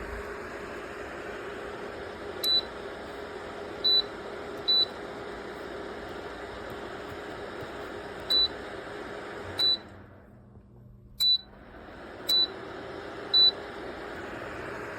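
Small ceramic space heater's fan running steadily, with eight short high beeps from its control panel as buttons are pressed. About two thirds of the way through, the fan winds down and goes quiet after a beep, then starts again and builds back up after the next beep.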